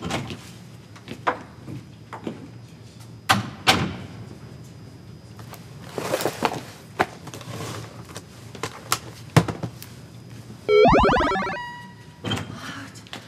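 Scattered light clicks and knocks. About ten and a half seconds in comes a loud sitcom sound effect: a quick rising sweep that settles into a ringing tone and fades over about a second and a half.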